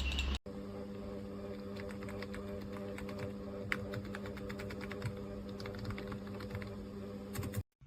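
Keys being typed on the N520 wireless keyboard with round vintage-style keycaps: a run of irregular key clicks over a steady low hum, stopping abruptly near the end.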